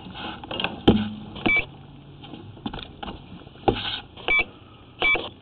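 Sewer inspection camera's locating equipment beeping three times in short flat beeps, between knocks and clatter of the camera gear being handled, as the camera head's transmitter is being located at the cleanout.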